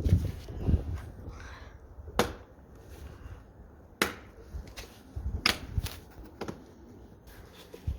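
A handful of sharp plastic clicks, spaced a second or two apart, as Toyota 4Runner side-mirror glass is pressed onto its mount, over faint handling rubs. The clicks may come from the mirror's adjustment mechanism rather than the retaining clips snapping in; the clips are not yet seated.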